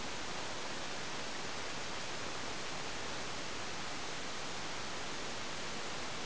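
Steady, even hiss from the model rocket's small onboard camera microphone, with no other sound.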